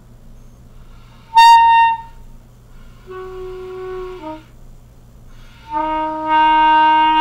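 A beginner blowing single notes on a clarinet: a short, loud, high note about a second and a half in, a quieter note around the middle, then a loud lower note held for nearly two seconds near the end.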